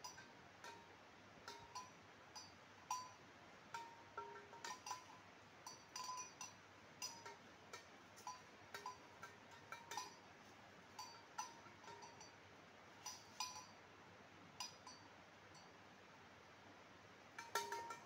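Small cowbell on a grazing cow's neck clinking irregularly as the animal moves its head, short metallic rings coming a few at a time with gaps between, faint over a steady hiss.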